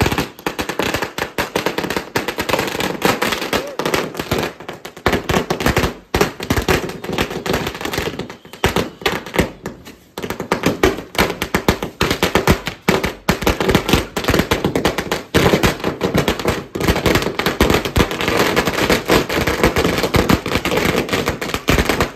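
A long string of firecrackers going off in rapid, continuous bangs, with brief lulls about six and ten seconds in.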